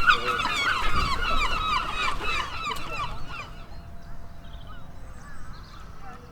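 Several herring gulls calling over one another in rapid short calls, loud at first, then thinning out to fainter calls after about three seconds.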